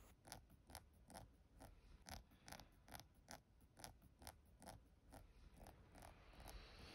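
A clock ticking faintly and evenly, about two ticks a second, in a quiet room.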